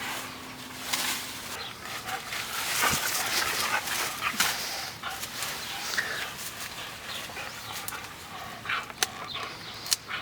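A dog tearing and chewing at a tree's or shrub's branches: rustling leaves and repeated snapping, crackling twigs.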